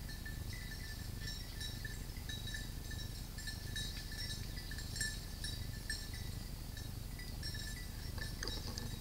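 Small bells tinkling faintly and continuously in the woods, over a low steady rumble.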